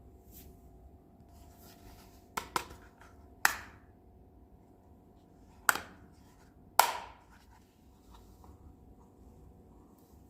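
Small hard miniature toy kitchen pieces being handled and set down: five sharp clicks, a quick pair and then three single ones, some trailing off in a short ring.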